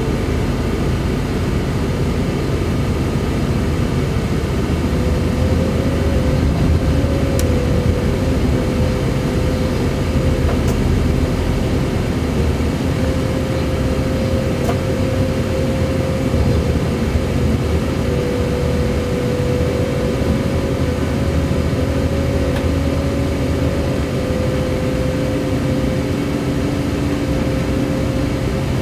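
Electric train heard from inside the driver's cab while running: a steady rumble with a drawn-out whine that rises slightly in pitch, and a few faint clicks.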